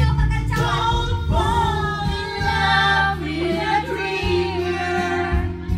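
Karaoke singing: voices, a woman's among them, sing along over a backing track with a steady bass.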